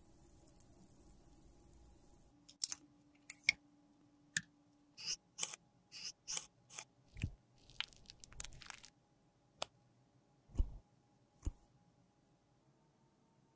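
Small sharp clicks and taps of a metal lipstick mold and a gold lipstick case being handled, about a dozen spread over several seconds, with a few duller knocks among them.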